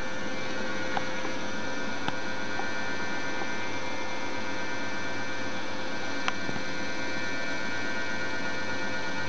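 Steady electrical hum with several fixed high tones above it, and a few faint ticks, about one, two and six seconds in.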